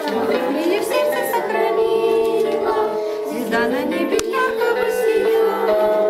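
Music with several voices singing, over a steady held note.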